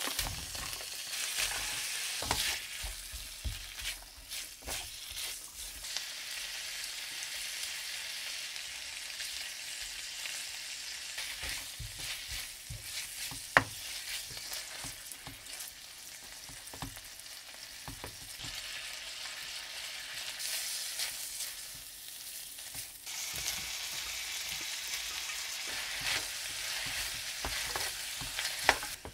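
Food sizzling in a hot frying pan while being stirred, with scattered knocks of a utensil against the pan and one sharper click about halfway through.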